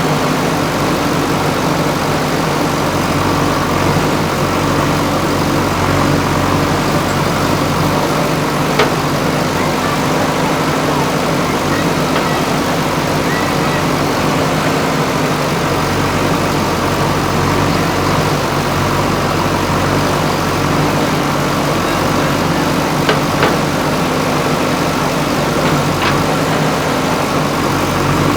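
JCB 3DX backhoe loader's diesel engine running steadily while the machine works, with a few brief sharp knocks about nine seconds in and again near the end.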